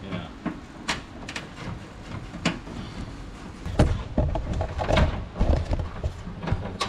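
Scattered clicks and knocks of a hand tool and plastic trim as the clip and screw holding the bumper to the fender liner are worked loose, with heavier knocks and thuds from about four seconds in.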